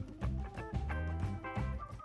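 Music with a strong, pulsing bass line and pitched instrument notes over it.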